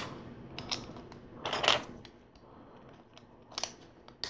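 Plastic LEGO pieces clicking and clattering as they are handled and fitted onto the model: a few separate light clicks, with a brief louder rattle about a second and a half in.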